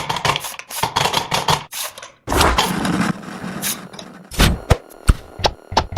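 A rapid, irregular run of clicks and knocks with some scraping between them, like small things being handled at close range.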